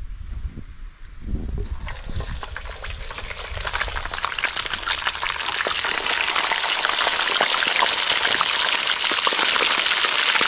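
Grouper pieces frying in hot oil in a small wok, a dense sizzle full of crackling pops. It starts about two seconds in and grows louder over the next few seconds as the batch goes in, then holds steady.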